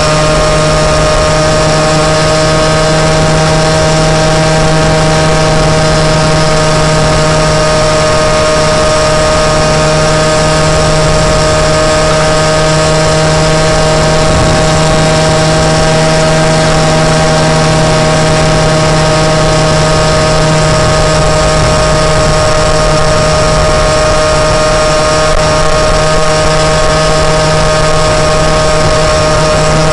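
Moped engine running loud and close at a steady, unchanging pitch while the moped is ridden.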